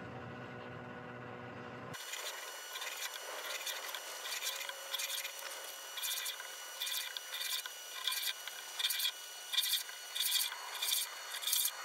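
Pencil scratching short tick marks on the bare face of a Scottish elm platter, drawn along a ruler: a run of brief scratchy rubs, about two a second. A low hum comes first, for about two seconds.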